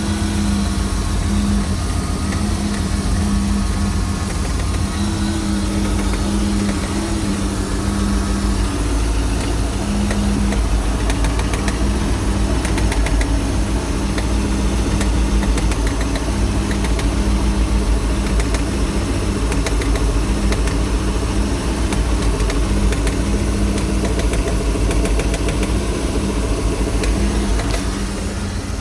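MerCruiser 260 5.7 L V8 marine engine idling steadily with a repeated ticking knock. The knock is the fault being traced: it is heard only at idle and goes away when the revs come up.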